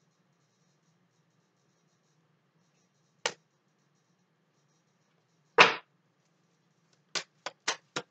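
Deck of tarot cards being handled and shuffled: a single sharp card snap, a louder slap a couple of seconds later, then a quick run of crisp snaps near the end.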